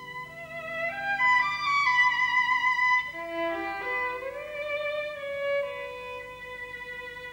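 Music: a violin playing a melody with vibrato, climbing and then falling back, over a steady held note.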